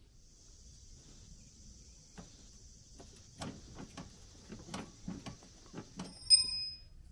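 Hand tools on the bolts under a riding lawnmower: a run of irregular metal clicks and knocks, then a sharp ringing metallic clink about six seconds in, the loudest sound. A steady high buzz runs behind for most of it.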